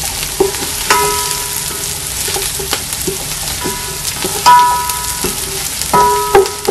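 Chopped onions frying in oil in a metal pot, sizzling steadily, cooking toward golden brown, while a wooden spatula stirs and scrapes them. Several times the spatula knocks the side of the pot, which rings briefly; the loudest knock is just past the middle.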